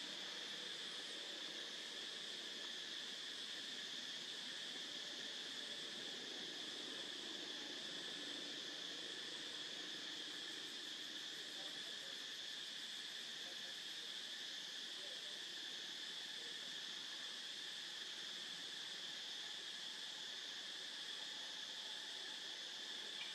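Steady insect chorus in the forest, a continuous high-pitched buzz that does not change.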